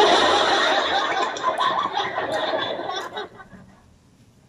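A man huffing hard breath out through his mouth around a mouthful of food that is too hot, for about three seconds before it fades out.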